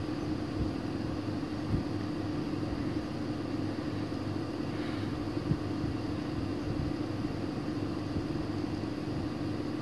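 Steady low mechanical hum, with a couple of faint knocks.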